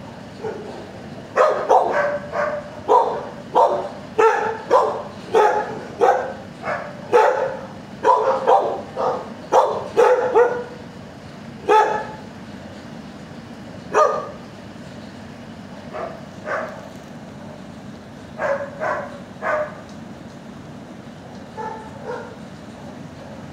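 Dog barking in quick runs of sharp barks, thinning out to occasional barks after about twelve seconds, over a steady low background hum.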